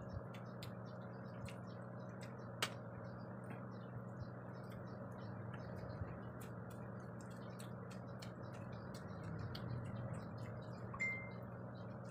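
Quiet eating by hand: many small scattered clicks and smacks of chewing and fingers working through rice, over a steady low hum. A sharper click comes about two and a half seconds in, and a brief thin beep-like tone near the end.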